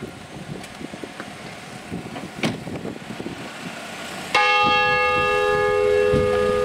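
A single stroke of a church bell about four seconds in, ringing on and slowly fading: a funeral toll as the hearse reaches the church. Before it, a sharp knock about two and a half seconds in.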